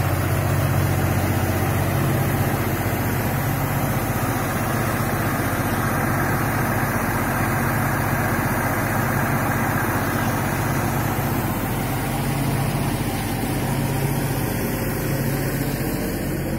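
Mahindra 265 DI tractor's three-cylinder diesel engine running steadily at constant speed, driving a PTO-mounted dewatering pump, with water from the pump outlet rushing and splashing onto the ground.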